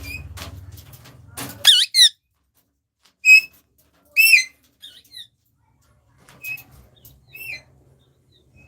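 Pet parrots giving short, sharp, squeaky calls whose pitch bends up and down, about six calls, the loudest in the first half. A low hum runs under the start and stops a little before two seconds in.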